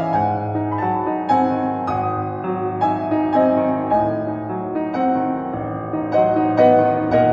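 Background piano music, a gentle melody with notes struck one after another.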